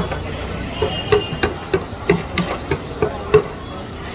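Steel masher pounding a tomato-and-pea vegetable mash on a large flat iron griddle, a steady run of metal knocks about three a second, as the bhaji for pav bhaji is mashed.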